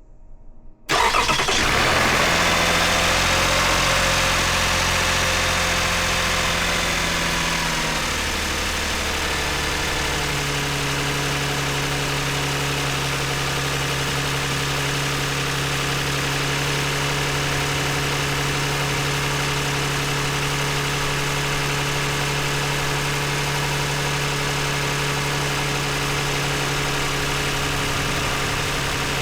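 2009 Toyota Highlander engine starting about a second in, running at a raised idle at first, then settling to a lower steady idle after about eight to ten seconds. It is the test start after swapping the ignition coils of cylinders 2 and 4 to chase a cylinder-2 misfire.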